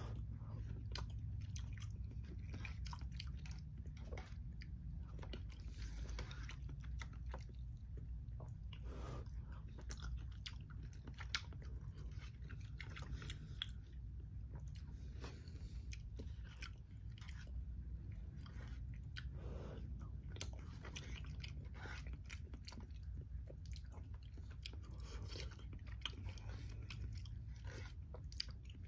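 Close-up chewing and biting of a meal of macaroni and cheese and breaded fried chicken: many small wet mouth clicks and crunches. A steady low hum sits underneath.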